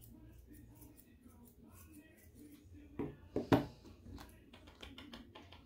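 Grooming thinning shears snipping at a small dog's paw fur: a string of soft, quick clicks, with a few louder knocks about three seconds in.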